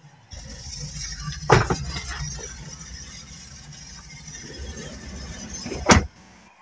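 Toyota Hiace Super Grandia van doors being slammed shut, two loud thuds about four seconds apart. A low rumble and hiss heard between them cuts off as the second door shuts.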